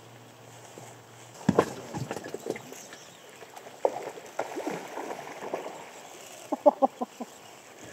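Water gurgling and sloshing against an inflatable raft's tube, in short bubbling blips, with a sudden thump on the raft about a second and a half in.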